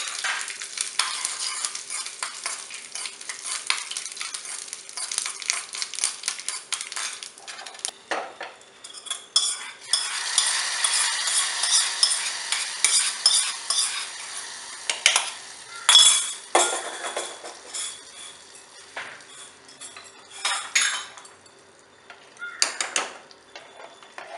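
A tempering of mustard seeds, dried red chillies and neem flowers sizzling and crackling in hot sesame oil in a small pan. About ten seconds in comes a louder burst of sizzling as the hot tempering is poured into the cooked mango and jaggery mixture. After that a metal spoon scrapes and clinks in the pot as it is stirred.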